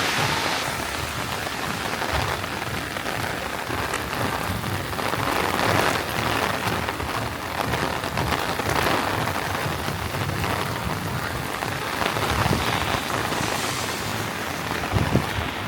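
Heavy rain pouring down and splashing on hard surfaces, a steady loud hiss, with a couple of short low thumps near the end.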